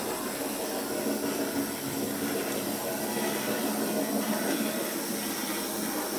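A 2mm finescale model train, a small tank locomotive hauling two coaches, running along the track, heard as a steady whirring hiss from its motor and wheels on the rails.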